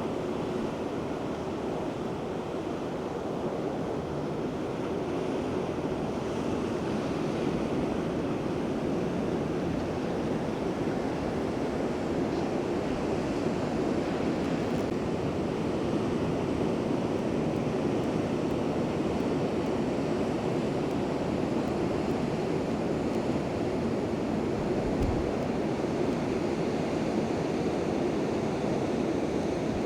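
Ocean surf: a steady rushing noise of waves breaking, with no distinct pulses or breaks.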